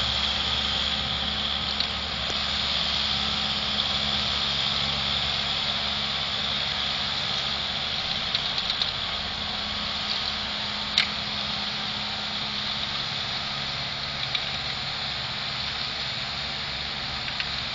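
Steyr Kompakt 4095 tractor's engine running steadily while it pulls an Ohler manure spreader that is spreading manure, heard at a distance. A faint tick about 11 seconds in.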